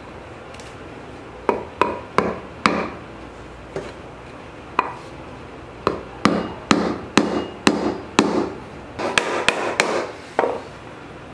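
Rubber mallet striking a wooden block laid over a differential output flange, driving a new output-shaft seal into place. A string of sharp blows, a few spaced ones at first, then quicker from about six seconds in until near the end.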